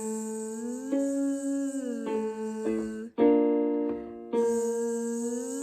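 Gentle buzzed 'zzz' vocal exercise: a singer's voice on a Z sound slides up a few notes and back down over piano accompaniment. After about three seconds the piano alone plays the next starting note, and the buzz comes in again and slides upward.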